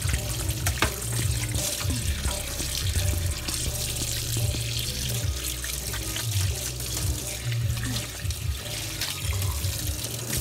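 Kitchen tap running steadily into a stainless steel sink, the stream splashing over hands as they rinse and rub a skinned rabbit carcass, with an uneven low rumble as the meat is handled under the water.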